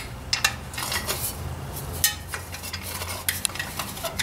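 Irregular metal-on-metal clinks and scrapes of a screwdriver prying and working at a muffler that has crimped itself tight onto a Ford 800 tractor's exhaust pipe.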